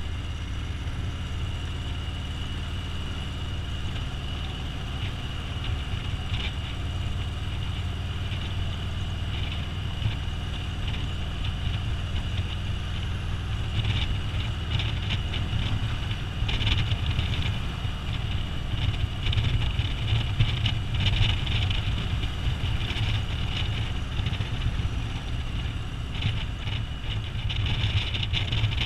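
Touring motorcycle's engine running steadily at road speed, a low rumble heard from the rider's seat, with wind noise over it that gets louder and choppier about halfway through.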